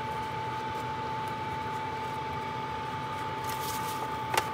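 Steady hum with a constant high whine from a preheating convection oven. Near the end parchment paper crinkles as a puff-pastry sheet is peeled off it, and there is a single sharp click.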